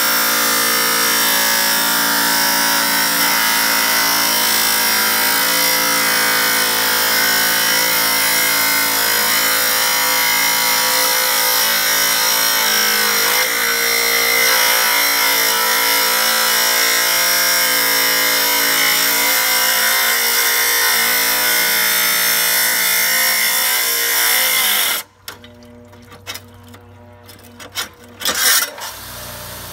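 Chicago Electric wet tile saw running with its blade grinding through a tile, a loud steady whine with a motor hum under it. Near the end the sound drops away abruptly, leaving only faint noises and a few brief sounds.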